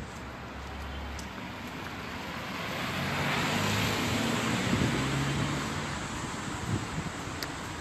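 A car driving past close by on a wet street: tyre noise and a low engine hum swell to a peak about four seconds in, then fade, over general traffic noise.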